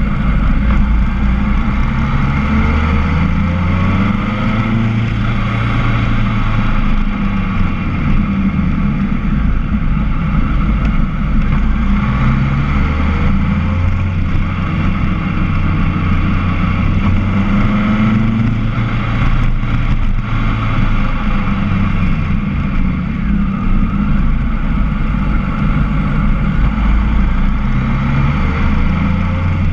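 Motorcycle engine running on the move, its note rising and falling repeatedly through the bends, with rushing wind over the on-bike microphone.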